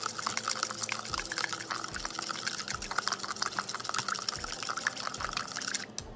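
Metal spoon stirring a thick soy and oyster sauce mixture in a mixing bowl: wet swirling with many quick light ticks of the spoon, stopping shortly before the end.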